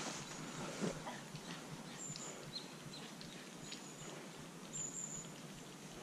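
Quiet woodland ambience: a few faint, short, high bird chirps over a low background, with scattered small clicks and rustles.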